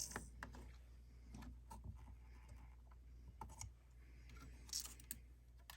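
Faint, scattered clicks and taps of small parts being handled as a servo is hooked up to a droid head's tilt-and-nod mechanism, with a steady low hum underneath.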